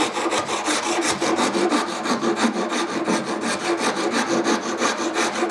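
Japanese saw rasp being pushed back and forth across the end of a wooden insert blank, a steady run of rapid, even rasping strokes, several a second, shaping the wood to fit.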